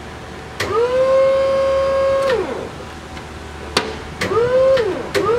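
Hydraulic lift pump motor of a Mitsubishi 36-volt electric order picker whining. Three times a click is followed by a whine that rises quickly to a steady pitch: it holds for over a second and then winds down, runs again briefly, and starts a third time near the end and keeps running.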